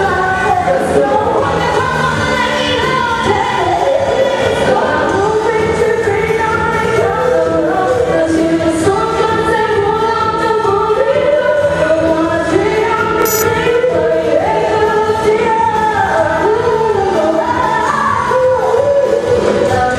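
Live band playing a song with sung lead vocals over the accompaniment.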